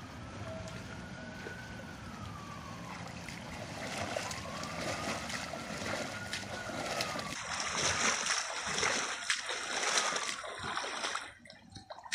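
Lake water sloshing and splashing around a person wading and pushing a raft of duct-taped plastic soda bottles, growing louder through the second half and dropping away suddenly near the end. A faint tone rises and falls twice in the first half.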